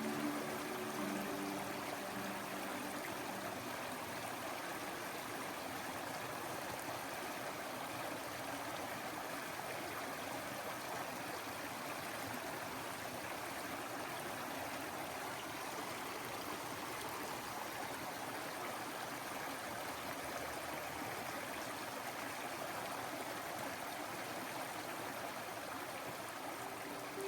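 A stream of running water flowing steadily as an even rush. Faint music fades out in the first second or so.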